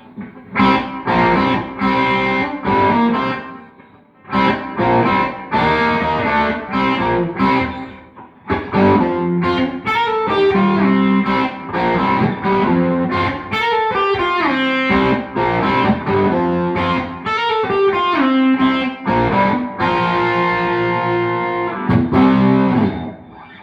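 Electric guitar, a G&L CLF Doheny, played through distortion: strummed and held chords with a few notes sliding down in pitch, stopping near the end.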